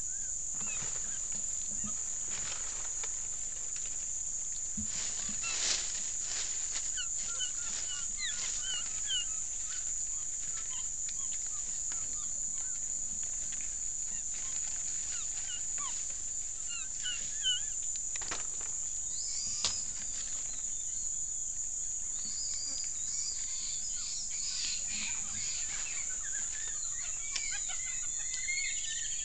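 Forest ambience picked up by a trail camera: a steady high-pitched drone under many short, squeaky chirps that grow busier from about two-thirds of the way in, with a few sharp snaps or knocks.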